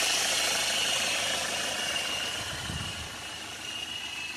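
Chevrolet Optra's diesel engine idling steadily with the bonnet open, heard close up; the fan belt no longer squeals after being treated with chain spray.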